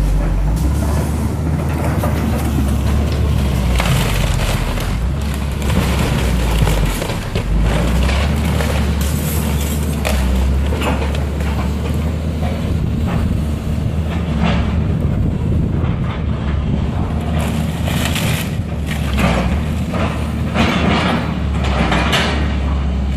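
Diesel engine of a heavy demolition machine running steadily under load, with repeated cracks, crashes and crunches of a house's timber and debris being broken and pulled down.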